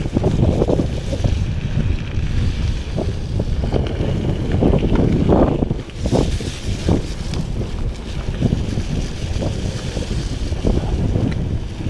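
A mountain bike rolling fast along a packed forest trail: tyre rumble and frame rattle with irregular knocks over bumps, under heavy wind buffeting on the action camera's microphone.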